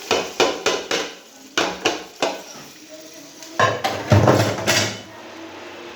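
Cooking pots and metal utensils clattering: a quick run of knocks and clinks, then a louder, rougher clatter of metal on metal for about a second and a half.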